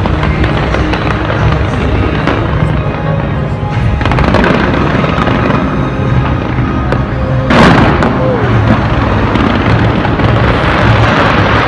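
Fireworks bursting and crackling continuously over music, with one loud boom about two-thirds of the way through.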